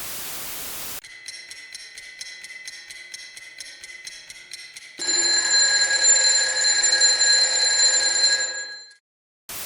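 Electronic alert tones: a rapid, evenly pulsing beep for about four seconds, then a louder steady tone of several fixed pitches for about four seconds that cuts off abruptly. Radio static hisses briefly before them and again near the end.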